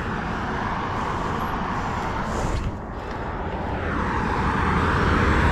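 Wind rushing over the microphone and tyre noise as a Kawasaki Z800 rolls along for a push-start, with no clear engine note. The rush dips briefly about three seconds in, then grows louder toward the end.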